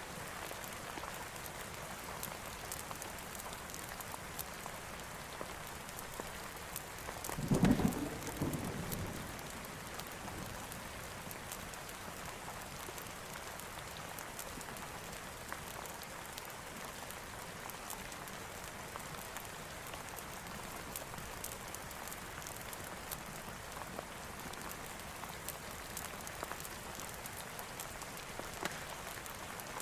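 Steady heavy rain falling, with a single short clap of thunder about seven seconds in that dies away within two seconds.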